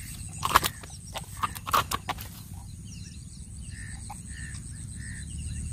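A few sharp clicks and rustles in the first two seconds, then a bird calling a short repeated note about twice a second, over faint chirping of other birds.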